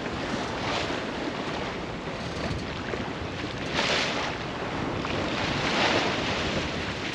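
Water rushing and splashing along the hull of a sailing yacht moving through choppy sea, with wind buffeting the microphone. The wash surges louder about four seconds in and again near six seconds.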